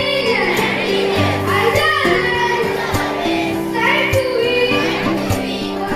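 Children singing a song together over instrumental backing with a steady beat.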